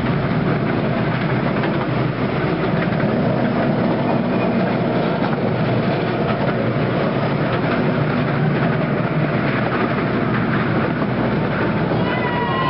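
Miniature ride-on railway train running, heard from an open passenger car: a steady rumble and clatter of wheels on the track. A high pitched tone sounds near the end.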